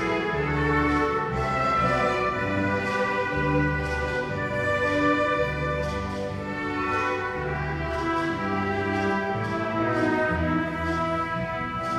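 Symphony orchestra playing an instrumental passage: bowed strings holding sustained lines over repeated long low bass notes.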